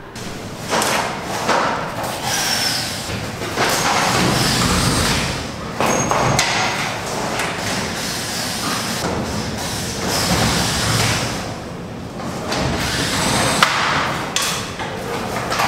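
Ceiling demolition by hand: repeated knocks, scraping and clattering as ceiling panels and light fittings are pried loose and pulled down.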